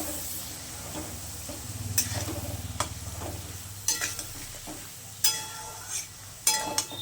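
A spatula stirring sizzling onions and spices in hot oil in a metal pan, with a steady frying hiss and about seven sharp knocks and scrapes of the spatula against the pan, some ringing briefly.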